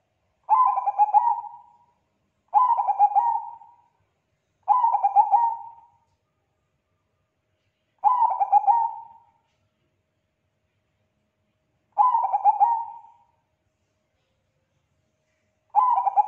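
Zebra dove of the Bangkok-bred perkutut strain cooing in full song: six rolling, rapidly stuttering coo phrases of about a second each. The first three come about two seconds apart, the rest with longer pauses between them.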